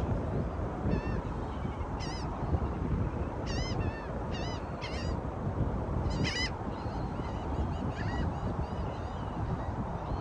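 Short, arched bird calls repeated many times in quick clusters, over a steady wash of wind and surf noise.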